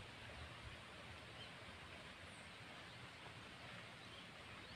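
Near silence: faint outdoor ambience, a steady soft hiss with a few faint, high, short chirps.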